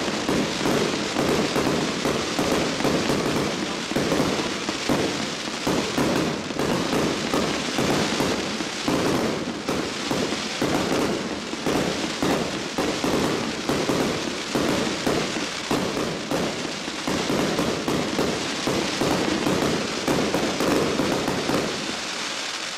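A 100-shot fireworks cake firing in a continuous rapid barrage, several shots a second: launch thumps and star bursts overlapping, with crackling from the crackling-star effects.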